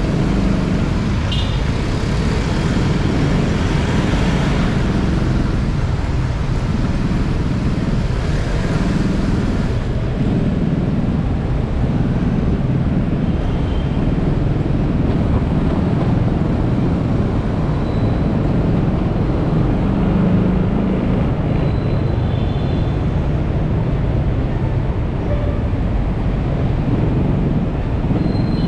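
Motorcycle engine running at low speed in slow, crowded city traffic, a steady low rumble with the traffic around it, and a lighter hiss on top during the first ten seconds or so.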